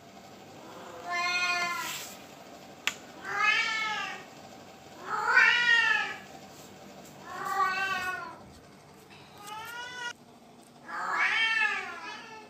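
A cat meowing six times, about one call every two seconds, each call rising and then falling in pitch. A single sharp click sounds near three seconds in.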